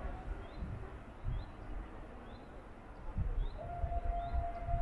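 Outdoor trackside ambience: wind buffeting the microphone with uneven low rumbles, and a small bird repeating a short, high, rising chirp about once a second. About three and a half seconds in, a steady distant tone starts and holds.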